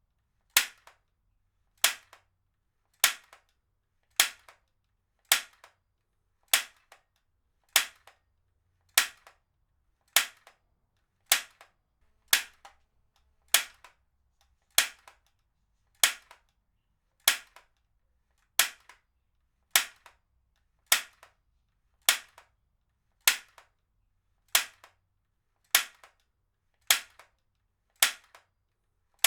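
Heavy-duty stapler firing over and over, a sharp snap about every second and a bit, each followed by a faint second click as the mechanism resets.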